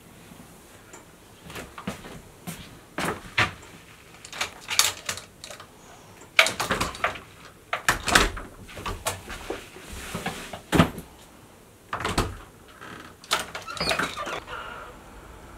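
A run of irregular clicks and knocks from footsteps down a hallway and a front door's latch and handle being worked as the door is opened.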